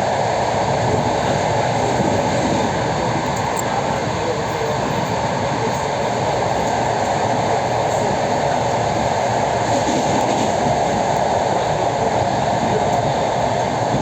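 Electric commuter train running steadily at speed, heard from inside the carriage: a constant, even rumble of the moving train.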